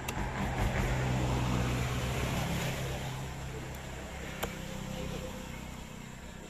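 An engine running with a steady low hum that swells in the first second and slowly fades away. About four and a half seconds in there is one sharp knock of a cleaver striking the wooden chopping block.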